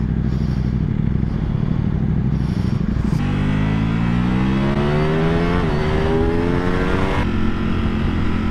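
Ducati Panigale V4R's V4 engine heard from the rider's seat with wind noise, first running steadily, then revving up in a long climbing pitch with a brief wobble partway, before settling back to a steady drone near the end.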